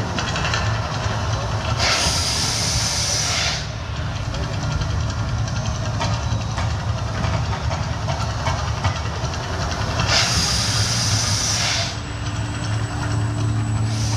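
Volcano show gas flame jets firing in two bursts of loud rushing hiss, each under two seconds long, about two seconds in and again about ten seconds in, over a steady low hum.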